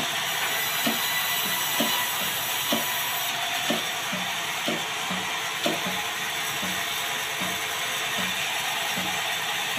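Mechanical clicks at a steady pace of about one a second, each followed by a short low thud, over a steady hiss; the clicks grow fainter after about six seconds.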